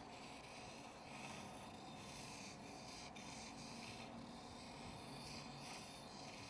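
Graphite pencil scratching across paper on a lightbox, a faint dry scraping in a series of strokes with short breaks between them.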